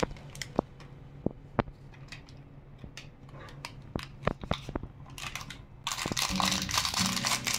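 Foil seasoning sachet crinkling as it is squeezed and shaken over a steel pot of noodles, with scattered sharp clicks. Background music comes back about six seconds in.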